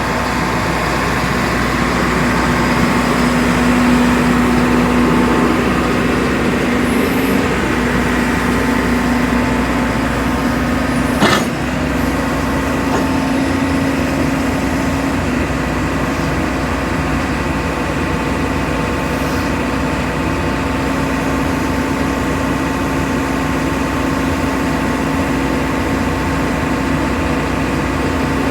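Diesel engine of a 2019 JCB 220XLC tracked excavator running steadily, a little louder for a few seconds near the start, with one sharp knock about eleven seconds in.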